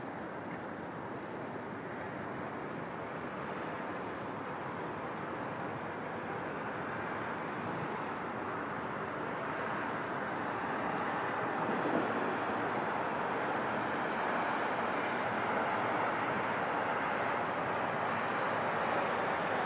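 Distant city traffic noise: a steady rush that grows slowly louder.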